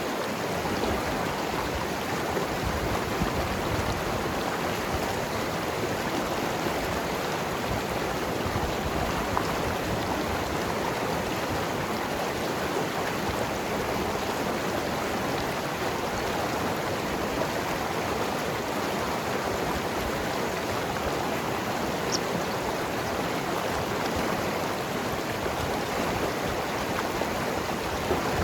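Mountain river rushing and gurgling over rocks, a steady, unbroken flow of water.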